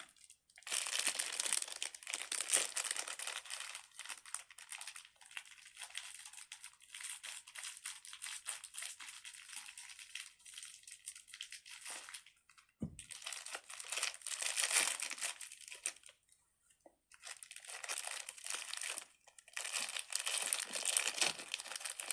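Crinkly plastic packaging being handled, rustling and crackling in several long spells with short pauses. There is a single soft thump about halfway through.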